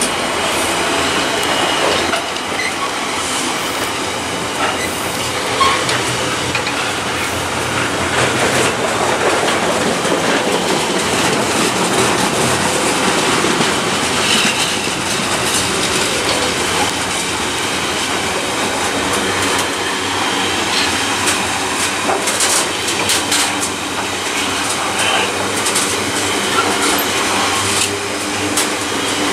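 Container freight train's flat wagons rolling past close by: a steady rumble of steel wheels on the rails, with frequent clicks as the wheels pass over rail joints.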